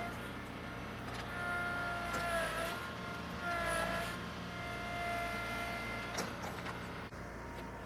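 Tractor engine running steadily with a whine. Its pitch sags and recovers twice, as if under load, and a few sharp knocks come near the end.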